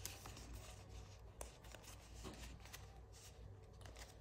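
Faint rustle and soft clicks of paper banknotes being counted by hand, over a low steady hum.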